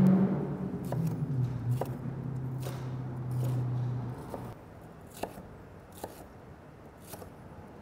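Chef's knife slicing jalapeño halves into thin strips on a wooden cutting board, the blade knocking on the board about once a second. A low steady hum runs under the first half and stops about four seconds in.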